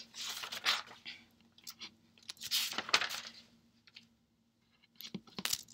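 Paper rustling in a few bursts as book pages are leafed through in search of a passage, with a couple of sharp clicks near the end.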